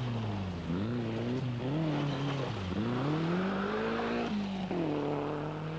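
Rally car's engine at high revs, its note falling and rising several times as the driver lifts off and gets back on the throttle, with one long climb in revs in the middle before it holds steady near the end.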